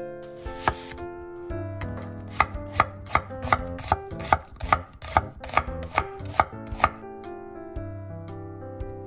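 Chef's knife slicing an onion thinly on a wooden cutting board: about a dozen even strokes, roughly two and a half a second, each ending in a sharp tap on the board, starting about two seconds in and stopping near seven seconds.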